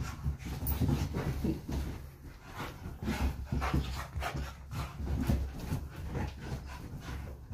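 A Belgian Malinois and a staffy play-fighting on a sofa: irregular dog noises mixed with scuffling and dull thuds of bodies landing on the cushions.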